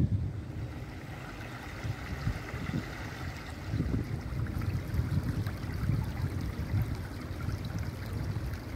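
Shallow stream water trickling over a pebbly bed, with uneven low gusts of wind buffeting the microphone.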